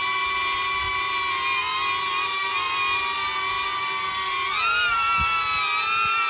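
DJI drone hovering, its propellers giving a steady multi-tone whine. The pitch shifts and rises briefly about four and a half seconds in as the motors change speed.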